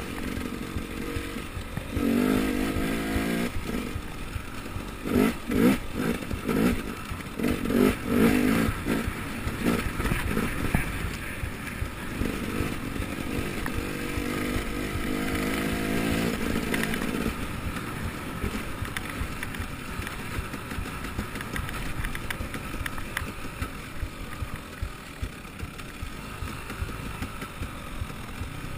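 Enduro dirt bike engine ridden on a rough trail, revving up and easing off in short bursts of throttle, with the bike clattering over bumps. After a steadier stretch it settles to a quieter run in the last third.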